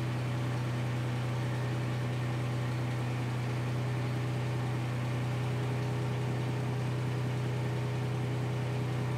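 Forklift engine idling steadily: an even, low hum with no change in speed.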